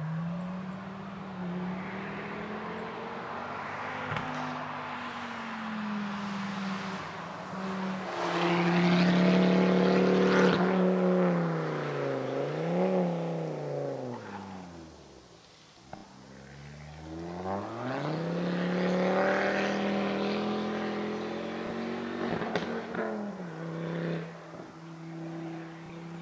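Ford Focus ST's turbocharged five-cylinder engine working hard through an autoslalom. Its note rises and falls with the throttle as the car weaves between cones, drops low about fifteen seconds in, then climbs again as it accelerates away.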